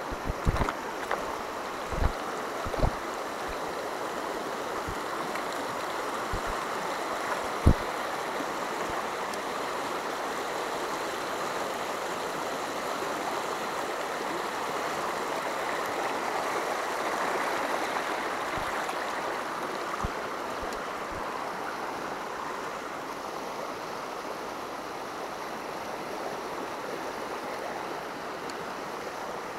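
Shallow, fast river rushing steadily over rocks and small rapids. A few short sharp clicks sound over it in the first eight seconds, the sharpest about eight seconds in.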